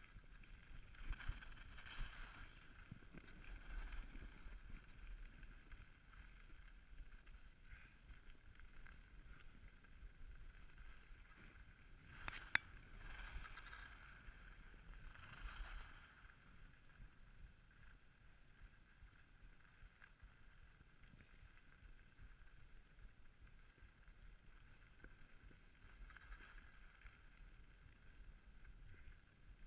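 Faint hiss and scrape of skis running on groomed snow, with low wind rumble. Louder swishes come with turns in the first half, and a single sharp click about twelve seconds in.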